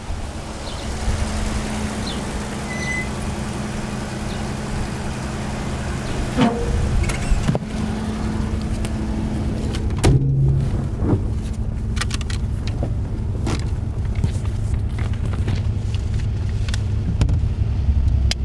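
Car engine running steadily with a low hum. Scattered clicks and knocks come in from about six seconds in, and the sound changes about ten seconds in, when it is heard from inside the car.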